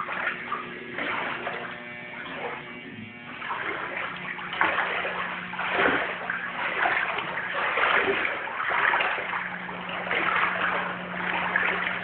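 Footsteps wading through floodwater on an indoor floor, splashing and sloshing about once a second from a few seconds in. A steady low hum runs underneath.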